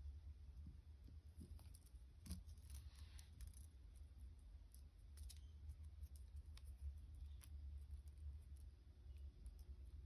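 Near silence: faint scattered clicks and ticks of thin copper wire being pulled and wrapped around a beaded wire connector, over a low steady hum.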